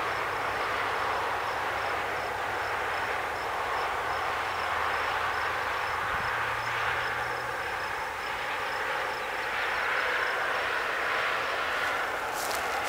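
Steady outdoor rushing noise, with a faint high chirp repeating about three times a second and a low hum under it. A few clicks near the end.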